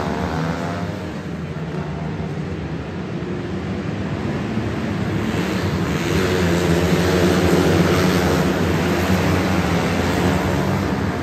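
Engines of a pack of small winged sprint cars racing on a dirt oval inside a covered arena. The sound drops away early on and then builds to its loudest about eight seconds in, as the field comes past on the near straight.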